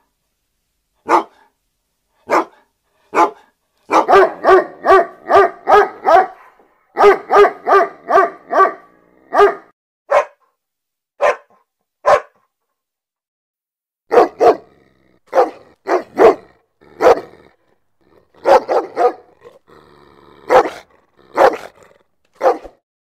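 A large dog barking angrily: single loud barks, then fast runs of about three barks a second, a short pause, and more barks, with a brief low growl between barks near the end.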